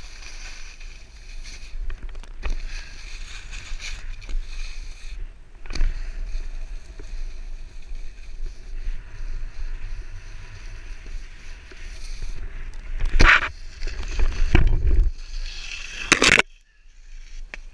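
Skis hissing and scraping over packed snow with wind rumbling on a GoPro's microphone. Near the end come loud scrapes and thumps as the skier falls and tumbles in the snow, then the sound drops away suddenly.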